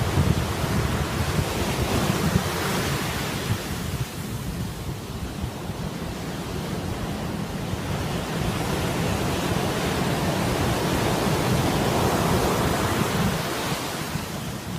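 Sea surf washing onto a beach, one wave swelling near the start and another building to a peak about twelve seconds in, with a quieter lull between. Wind rumbles on the microphone underneath.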